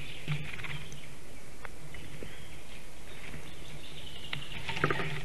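Outdoor nest-camera sound of forest songbirds chirping in the background over a steady low hum. A short cluster of clicks and rustling comes about five seconds in.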